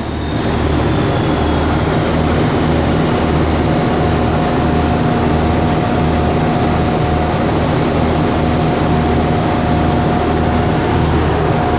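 Komatsu crawler bulldozer's diesel engine running steadily with a low, even pulse. A thin steady whine joins it about two seconds in.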